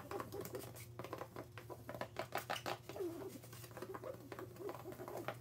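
Pen scribbling fast loops and zigzags on cardboard: a rapid, irregular scratching with a few light squeaks.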